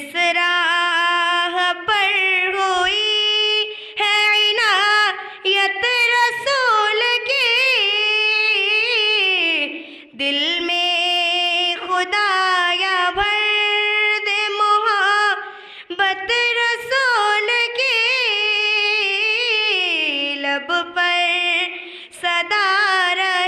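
A young female voice singing a naat unaccompanied, in long, ornamented held and gliding notes, with short breaths between phrases.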